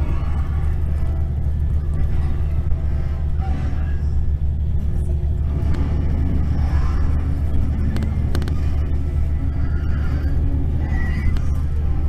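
Mercedes-Benz coach engine and road noise heard from inside the passenger cabin of an Irizar New Century 3.90 coach cruising on the highway: a steady low drone, with a couple of brief rattles about eight seconds in.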